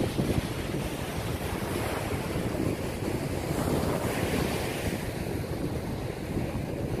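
Ocean surf breaking and washing up the beach, with wind noise on the microphone.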